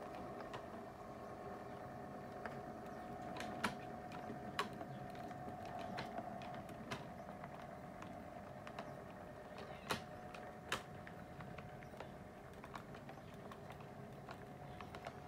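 OO gauge model diesel locomotive hauling BRA steel wagons along the track: a steady, quiet motor whine with scattered sharp clicks and ticks from the wheels on the rails.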